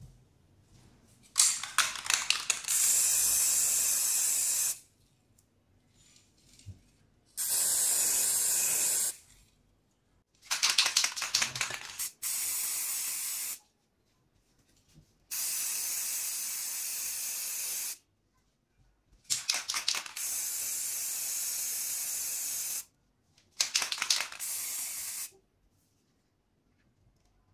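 Aerosol spray paint can spraying in six short bursts of hiss with pauses between. Several bursts open with a quick run of sputtering clicks.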